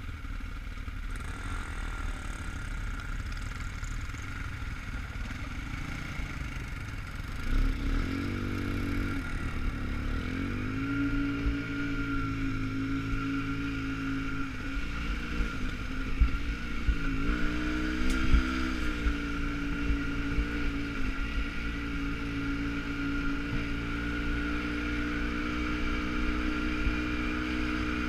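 Quad bike (ATV) engine heard from on the machine: running low and steady at first, then pulling away about seven seconds in and revving up and down with the throttle along a rough dirt track. A few sharp knocks come about two-thirds of the way through.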